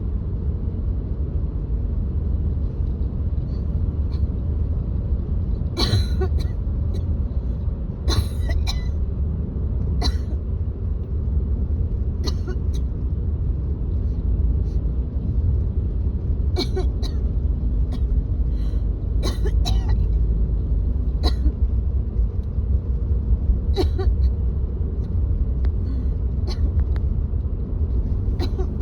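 A woman coughing and clearing her throat in short bursts at irregular intervals, a cough from phlegm she cannot bring up. Under it runs the steady low rumble of a car being driven, heard from inside the cabin.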